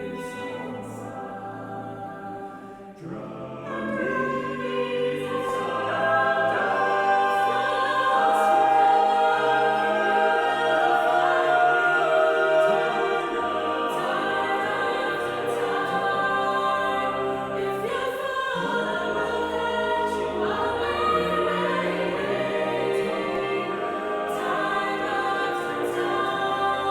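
Choral music: voices singing long held chords, swelling louder about three to four seconds in.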